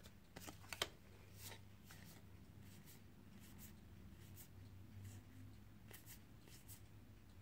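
Faint, scattered soft clicks and slides of Magic: The Gathering trading cards being flipped one behind another in the hands, over a low steady hum.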